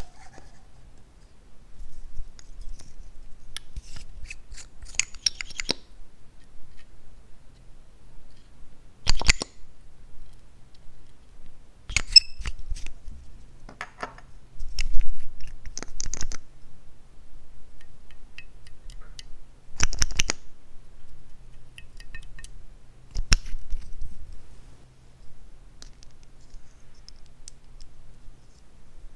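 Hands handling small plastic makeup containers and a lipstick: scattered sharp clicks as caps are opened and closed, with short scraping and rubbing sounds between them.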